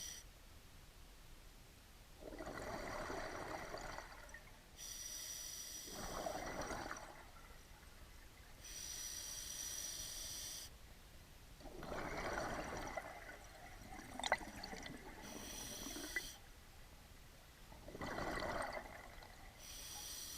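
Scuba diver breathing slowly through a regulator underwater: a hissing inhalation alternates with a rush of exhaust bubbles, about four breaths in all. A single sharp click sounds about two-thirds of the way through.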